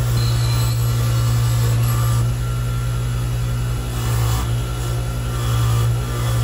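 Dayton bench grinder motor running with a steady hum while its wire wheel brushes heavy rust off a small steel rifle part held against it.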